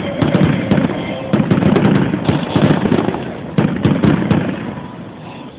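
A fireworks display: a rapid barrage of many bangs and crackles, dying away near the end.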